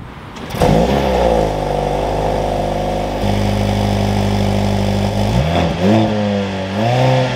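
The 2023 Mercedes-AMG C43's 2.0-litre turbocharged inline-four starts up through its quad exhaust. It flares briefly on start-up, then settles into a steady idle. In the last two seconds it gets a few quick revs.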